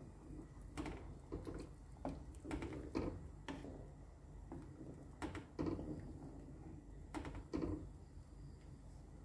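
Wooden spatula stirring a watery tomato and vegetable mixture in a granite-coated pan, knocking and scraping irregularly against the pan's base and sides.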